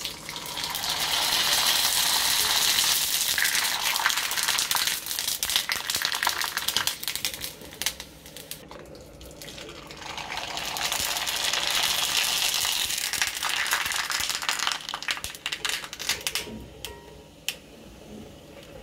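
Dried sago (javvarisi) vadam deep-frying in hot oil: loud sizzling and crackling with many sharp pops as it puffs up. It comes in two long spells, one at the start and one about ten seconds in, each dying down after several seconds.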